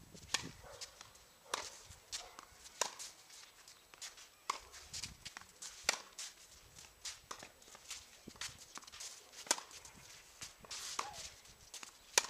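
Tennis rally: sharp pops of the ball struck by rackets and bouncing on the court, coming roughly in pairs about every second and a half.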